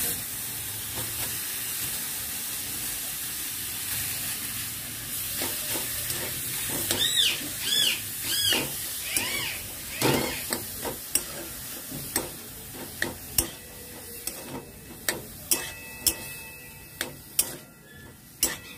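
Crumbled chhana frying in ghee in a metal kadai with a steady sizzle, stirred with a metal spatula that scrapes and clacks against the pan, the clacks sharper in the second half. Repeated high chirping calls come in a few times from about seven seconds in.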